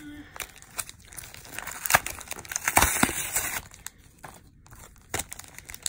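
Cardboard backing and plastic of a Pokémon card blister pack being torn and crinkled by hand, with foil booster packs rustling; loudest about two to three and a half seconds in, then a few lighter crackles.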